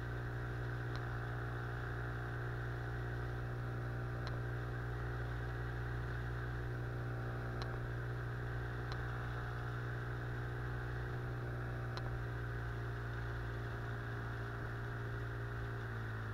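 Outboard motor on an inflatable boat running steadily under way, with a strong low drone. Its pitch drops a little at the very end as the throttle eases.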